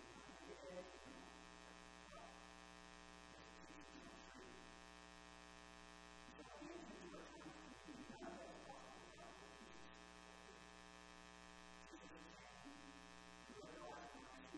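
Faint, steady electrical mains hum and buzz, with a man's voice coming through faintly at times.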